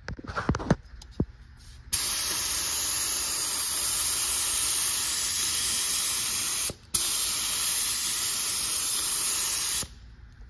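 Harbor Freight paint gun spraying a coat of primer: two long passes of steady, loud air hiss, the first from about two seconds in, the second after a brief break near the middle. A few clicks come before the first pass.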